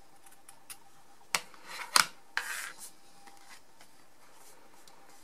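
Scissors snipping the small corner points off fabric squares: a few sharp snips around the middle, with the cloth rustling as it is handled.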